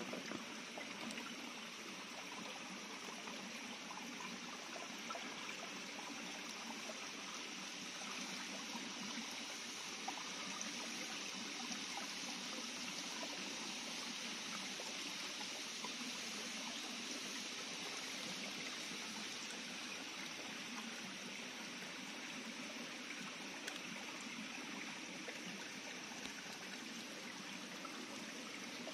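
Shallow rocky stream trickling steadily over stones and pebbles.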